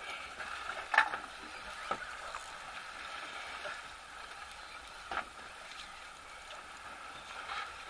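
Steady background noise of a fishing boat at sea, with a few short sharp knocks scattered through it; the loudest comes about a second in.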